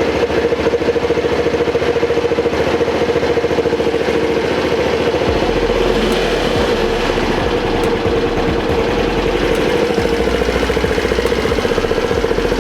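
Grom-clone mini bike's small single-cylinder four-stroke engine idling steadily at a really low idle, the carburettor's air/fuel mixture screw not yet properly set.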